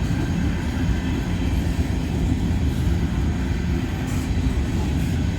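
Freight train rolling past, a steady low rumble of cars and wheels on the rails.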